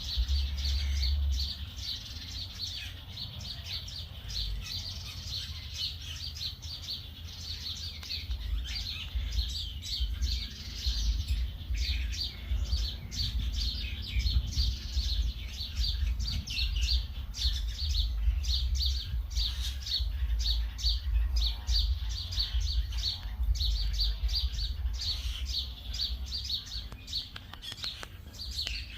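Small birds chirping rapidly and continuously in a dense chorus, over a steady low rumble.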